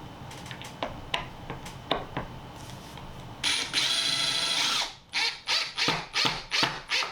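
Power drill boring a hole into a desk top. After a few scattered clicks and knocks it runs steadily with a high whine for about a second and a half, then comes about six short trigger bursts in quick succession.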